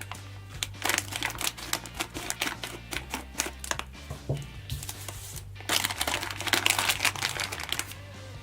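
Rapid crinkling and crackling, like something being handled and crumpled, in two long stretches with a short break about five and a half seconds in, the second louder; steady background music underneath.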